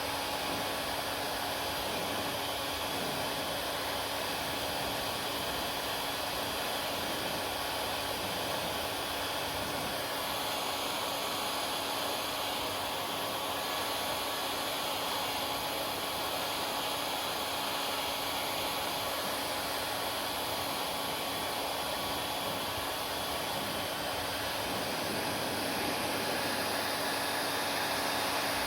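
Hair dryer running steadily: an even rush of air with a faint steady whine on top.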